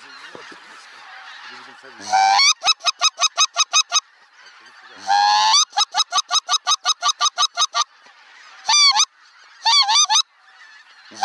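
Loud runs of rapid, evenly spaced goose honks, about seven a second, starting about two seconds in and again about five seconds in, with two short bursts near the end. Between them is the fainter calling of a large flock of geese overhead.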